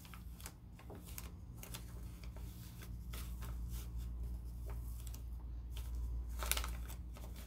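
A sheet of paper being folded and creased by hand on a carpet: scattered soft rustles and crinkles, with a louder one about six and a half seconds in.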